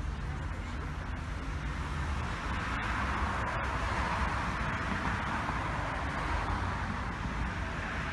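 Road traffic noise: a steady low rumble, with the tyre hiss of passing cars swelling a few seconds in.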